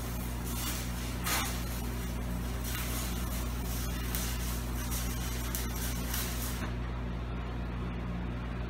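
Stick (arc) welding: a flux-coated rod burning in a steady crackling hiss as it welds the axle tubes to the center section of a Ford 8.8 rear axle housing. The arc cuts off about two thirds of the way through, leaving a steady low hum.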